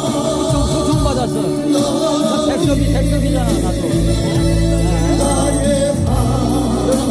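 Christian worship music: singing over a band accompaniment with a steady bass line and percussion.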